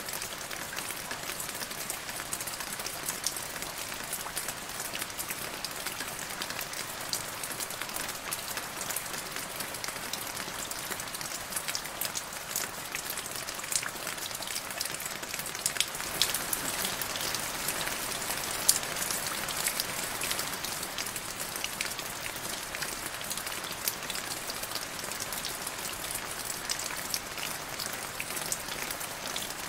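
Steady rain falling into a puddle: an even hiss scattered with many sharp ticks of single drops, a little heavier about halfway through.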